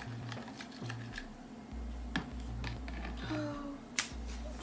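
Irregular light clicks and taps of a utensil against a bowl while an egg mixture is stirred, with a sharper tap near the end, over a steady low hum.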